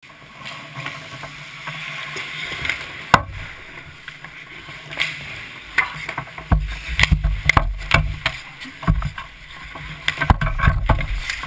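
Ice hockey heard from a camera in the goal net: skate blades scraping and hissing on the ice, a sharp clack of stick or puck about three seconds in and several more in the second half. Heavy thumps come in the second half as the goalie's pads and body knock against the net.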